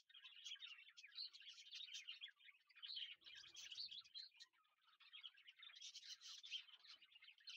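Faint, continuous chirping of many birds, a dense chorus of short high calls.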